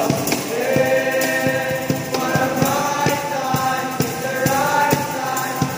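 Group of male voices singing a Christmas carol together, holding long notes, with a strummed acoustic guitar and a steady rhythmic beat underneath.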